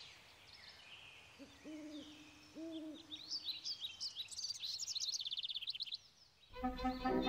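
Forest sound effects: an owl hooting twice, then songbirds chirping and trilling. String music starts near the end.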